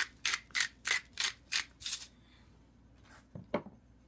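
Stainless steel salt grinder being twisted to grind salt, a rasping crunch about three times a second that stops about two seconds in. A sharp knock follows about three and a half seconds in.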